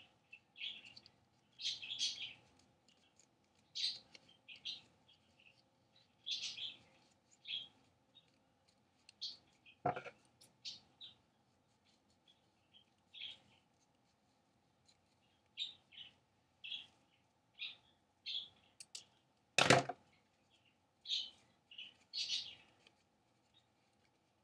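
Folded wallpaper and book pages being handled and cut with scissors: short scratchy paper rustles and snips about once or twice a second, with two sharp clicks, one midway and a louder one later.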